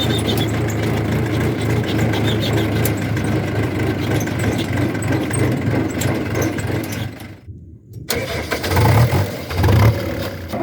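Diesel engine of heavy machinery running steadily, then cutting out for under a second, then two loud surges about a second apart near the end.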